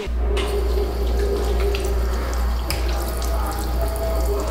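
Water running from a touchless sensor faucet into a restroom sink, over a steady low hum.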